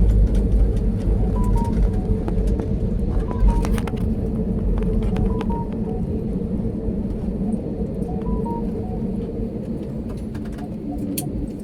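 Airliner cabin noise: a steady engine hum over a low rumble, slowly growing quieter. Faint short two-note beeps repeat every couple of seconds.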